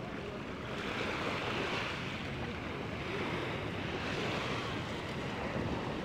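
Surf washing onto a sandy beach: a steady rushing noise of breaking waves that swells and eases.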